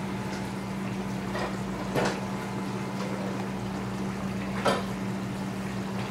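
Steady low kitchen hum with an even hiss, broken by three brief soft scrapes, the clearest about two seconds in and another near the end.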